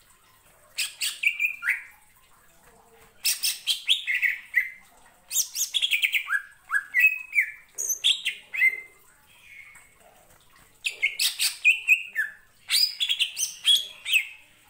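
Male greater green leafbird (cucak ijo) singing loudly in five bursts. The bursts mix rapid sharp chips with short whistled notes that slur down and up in pitch.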